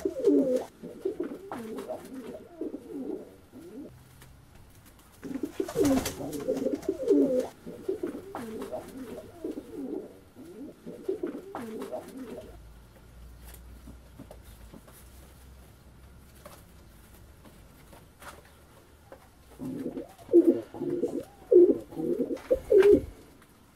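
Domestic pigeons cooing in three bouts, with a quieter stretch of several seconds before the last bout.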